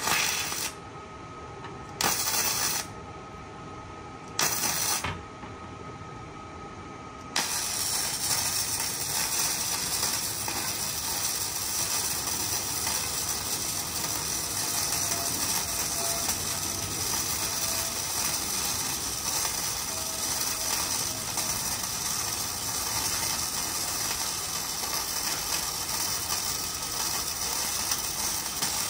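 MIG welding arc crackling on thin steel box tubing: three short tack welds, each under a second and about two seconds apart, then from about seven seconds in a continuous weld bead that crackles steadily.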